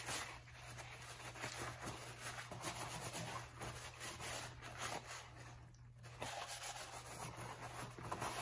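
Paper towel wet with paint thinner rubbing and wiping the oily inside of a car's oil filter housing in repeated strokes, with a short pause about six seconds in.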